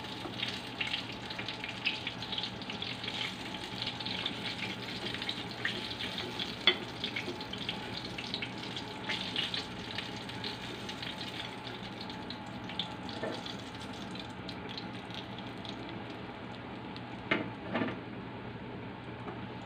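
Chicken and pork pieces sizzling and crackling in oil in a frying pan as a wooden spatula turns them, with one sharp pop partway through. The crackling thins out after about twelve seconds, and there are two knocks near the end.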